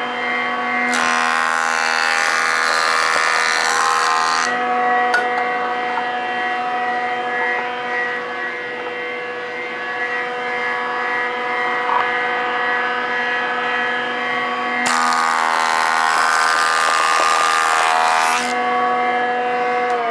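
Delta jointer running with a steady motor whine while boards are pushed across its cutterhead twice, each pass a loud cutting noise lasting about three and a half seconds: one near the start, the other a few seconds before the end.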